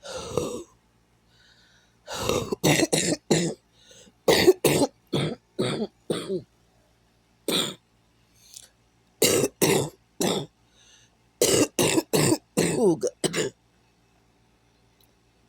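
A person coughing in repeated fits, each fit a quick run of two to five short coughs, with pauses of a second or more between fits.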